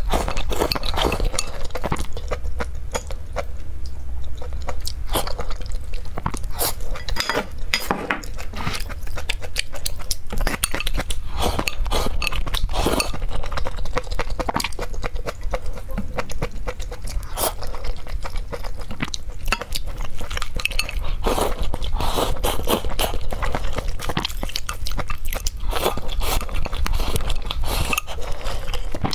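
Close-miked mukbang eating sounds: steady chewing and slurping of mouthfuls, with many quick clicks and clinks of wooden chopsticks against a glass bowl.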